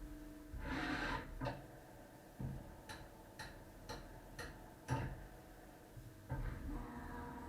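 CNC lathe working: a short rush of noise about a second in, then five sharp ticks about two a second, then its steady machine hum with a few steady tones starting up again near the end.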